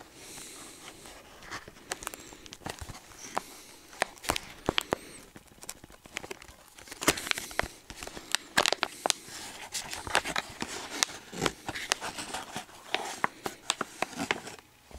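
Clear plastic packaging crinkling and crackling as it is handled and opened to get a toy out, with many sharp clicks, busiest in the second half.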